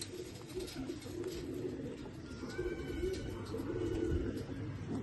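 Domestic pigeons cooing: low, wavering, repeated coos that overlap and run on without a break.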